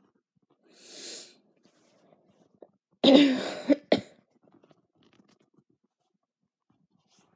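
A woman coughing: a soft breath in about a second in, then one loud cough about three seconds in, followed at once by a short second cough.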